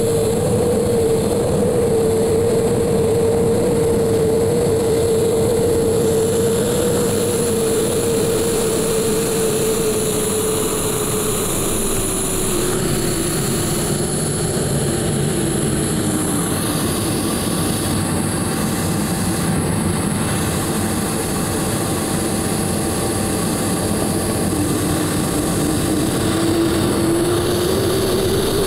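BD-5J's small turbojet engine and the airflow rush, heard from inside the cockpit in flight. The engine whine falls in pitch around the middle and again later on, then rises again near the end.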